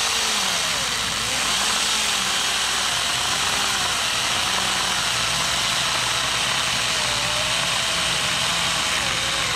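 Stihl GTA 26 cordless mini chainsaw cutting through a log about four inches thick, chain rasping through the wood. The motor's pitch wavers as it wants to bog a little under the load.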